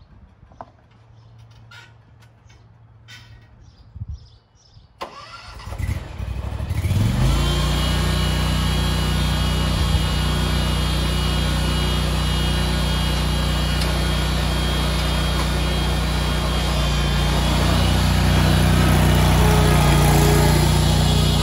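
Scag Tiger Cat II zero-turn mower engine cranked and started: a few faint knocks, then the starter turns it over about five seconds in and the engine catches a second or two later. It then runs steadily, getting a little louder near the end.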